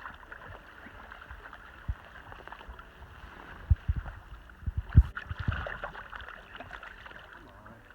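River water rushing steadily, with a few low thumps partway through, the loudest about five seconds in.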